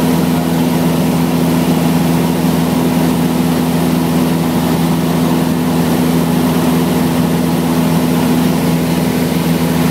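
Piston engine and propeller of a high-wing light aircraft droning steadily, heard from inside the cabin.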